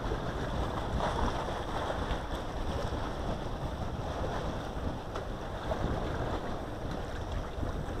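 Wind buffeting the microphone: a steady, uneven rushing rumble with no distinct events.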